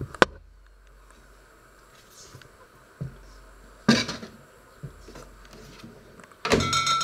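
Panasonic microwave oven being handled: a sharp click just after the start, a couple of knocks around three to four seconds as a plate of food is taken out, then the door shut with a bang and a short metallic ringing near the end.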